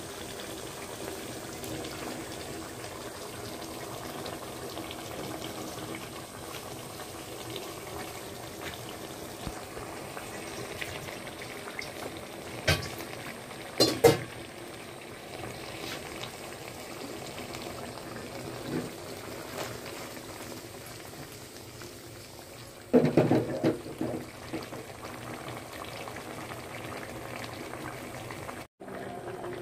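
Hilsa and pumpkin curry simmering in a metal kadai, a steady bubbling. A few sharp knocks come near the middle and a short clatter about three-quarters of the way through.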